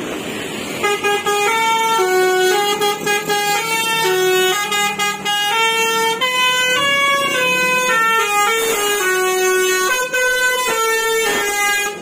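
A coach's telolet musical air horn playing a quick tune of short notes that step up and down in pitch. It starts about a second in and keeps going for about ten seconds.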